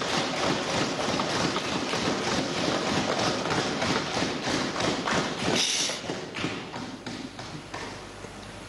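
Many hands thumping on wooden desks in rapid, overlapping knocks: parliamentarians applauding in the Indian way by desk-thumping. The thumping thins out about six seconds in and dies away to a few scattered knocks.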